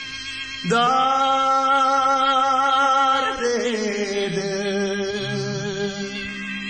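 Afghan pop song: a male voice holds a long, wavering note starting about a second in, then slides down to a lower held note over the accompaniment.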